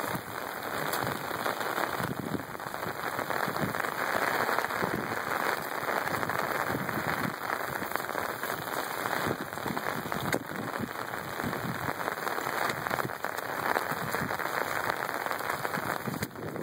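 Steady rain falling, with many small drops ticking close by.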